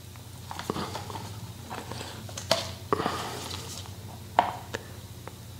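A plastic syringe being drawn full of boiled linseed oil from its bottle: soft rubbing of the plunger and syringe tip against the bottle neck, broken by a few sharp plastic clicks, the loudest about four and a half seconds in.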